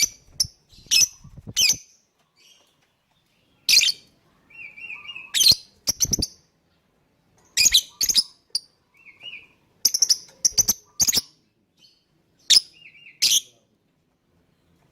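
Lovebird calling: short, shrill, harsh chirps in separate bursts about a second apart, mixed with brief warbling notes, with a pause near the end.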